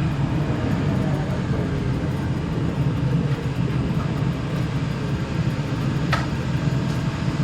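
Steady low mechanical hum, with one short sharp click about six seconds in.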